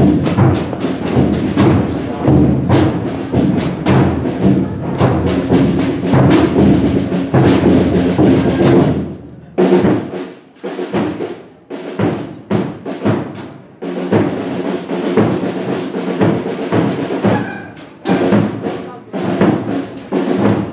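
A procession band plays a slow march: drums beat in a steady rhythm over held low instrumental notes. The drumming thins to a few spaced strokes with short pauses about halfway through, then picks up again.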